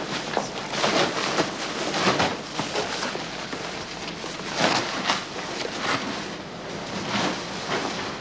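Fabric car cover rustling and swishing as it is pulled and dragged off a car, in irregular bursts.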